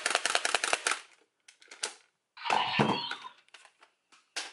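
DX Two SiDriver toy sounding: a rapid run of clicks through the first second, then after a pause a short sound with gliding tones, and a brief burst of clicks near the end.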